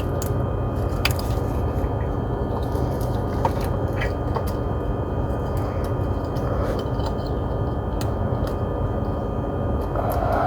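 A few light sharp clicks as a Ford 4.6 V8's ignition coil is pushed back onto its spark plug and its connector plugged in, over a steady low background hum.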